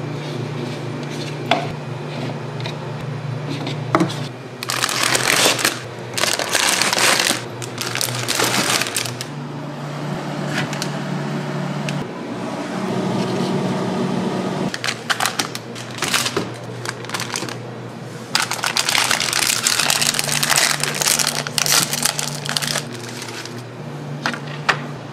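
Hands handling paper ramen bowls, a fridge door and noodle packaging: rustling and crinkling in two long stretches, with scattered clicks and knocks, over a low steady hum.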